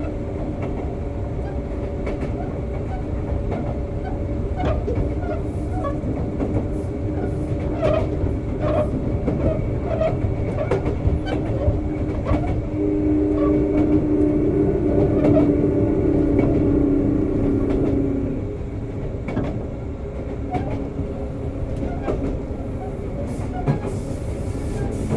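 Sotetsu 9000 series electric train with Hitachi IGBT VVVF drive running at speed, heard from inside the car: wheels clicking over rail joints over a steady hum from the motors and drive. About halfway through the hum grows stronger, then stops abruptly about three quarters of the way in and the running gets a little quieter.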